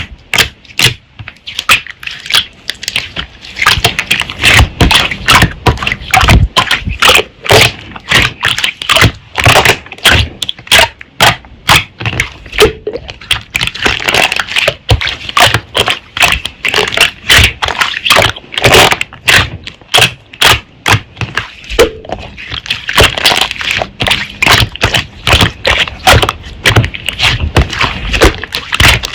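Slime being squeezed and poked by hand: a steady run of sticky clicks, pops and crackles, several a second.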